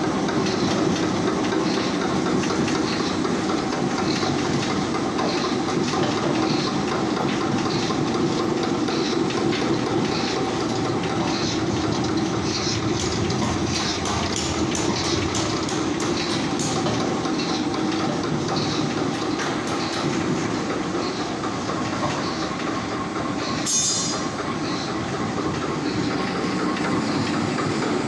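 Briquetting machine running steadily as it compresses chopped cereal straw into hard briquettes: a continuous mechanical drone with a regular beat about one and a half times a second. A brief sharp high-pitched sound stands out near the end.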